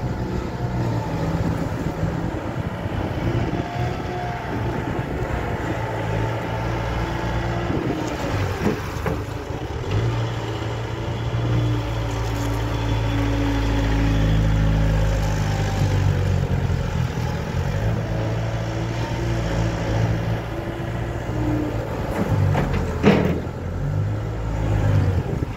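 Bobcat S300 skid-steer loader's diesel engine running as the machine drives and moves its bucket, the revs rising and falling. A single sharp knock sounds near the end.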